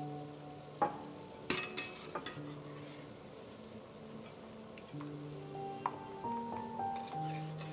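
Yeast-dough twists frying in hot vegetable oil in a pan, a steady sizzle, with a few sharp metallic clicks of a wire skimmer against the pan about one and a half to two seconds in. Soft background music plays underneath.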